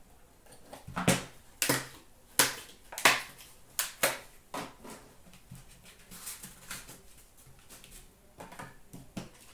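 A trading-card box being opened and unpacked by hand: scattered taps, knocks and clicks of the cardboard box and its metal tin being handled, with a brief rustle about six seconds in.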